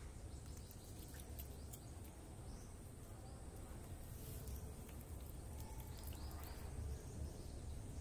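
Faint background noise: a steady low rumble and a thin high whine, with a few light clicks and several short, faint chirps about six seconds in.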